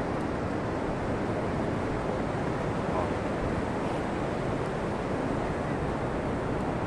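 Steady wash of ocean surf breaking on a sandy beach, with wind rumbling on the microphone.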